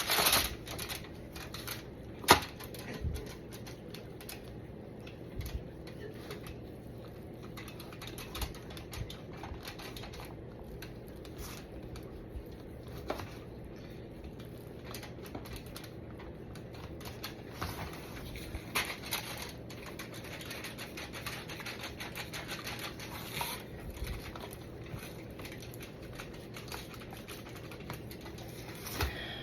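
Knife trimming fat off a raw brisket on a cutting board: scattered small cutting, slicing and tapping clicks over a steady low hum, with one sharp knock about two seconds in.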